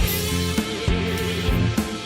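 Background music with a steady drum beat and held instrumental notes, one of them wavering.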